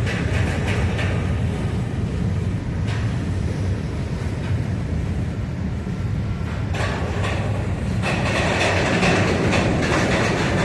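Slow freight train of empty covered hopper cars rolling past. A steady low rumble runs under wheel clicks and clatter over the rail joints, which grow busier near the end.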